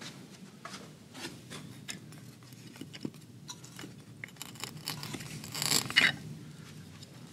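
Frame moulding corner samples clicking and scraping against one another as a hand sorts through a rack of them, with a louder scrape about six seconds in.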